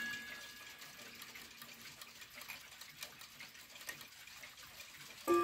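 Rod gongs of a 1960s East German Glashütte mantel clock: one struck chord rings out and fades over the first second or so, the movement ticks faintly, and near the end a hammer strikes the rods again with a loud, ringing chime.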